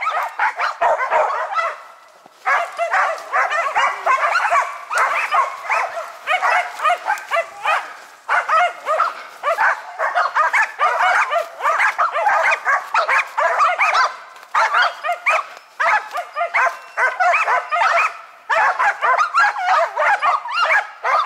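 Karelian-Finnish laikas (Finnish Spitz hunting dogs) barking in fast, continuous volleys with a few brief pauses. They are baying at a marten that has climbed up into the trees.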